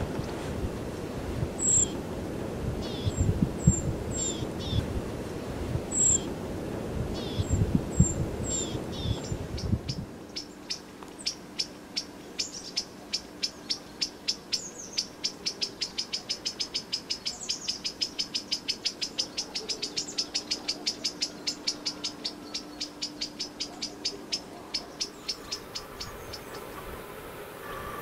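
Wind gusting over the microphone with a few short, high bird chirps. About ten seconds in, the wind noise drops away and a rapid, even series of high ticking notes, about five a second, runs for some fifteen seconds before fading.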